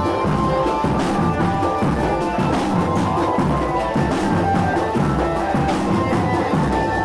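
Marching drum band playing, with bass drums and snare drums keeping a steady beat under a held melody line.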